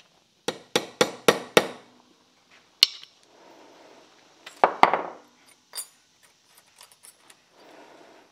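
Hammer striking a bent metal rod on a bench vise's anvil: five quick blows about four a second, one sharp ringing strike near three seconds in, then a couple more blows near five seconds, followed by light metal clinks.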